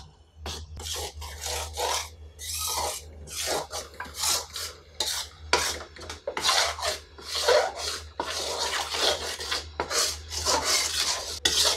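Metal spatula scraping around a metal kadhai as maida flour is stirred into ghee to roast, in repeated rasping strokes about one or two a second.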